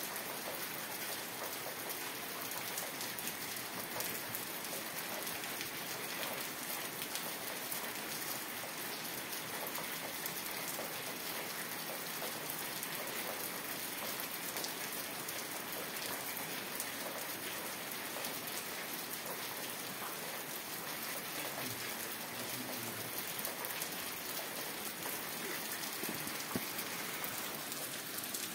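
Steady rain falling, an even wash of many small drops with no let-up or change.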